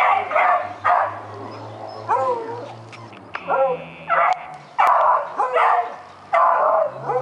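Beagle barking repeatedly at a rabbit: about nine sharp barks in quick, uneven succession, a few of them drawn out into rising-and-falling yelps.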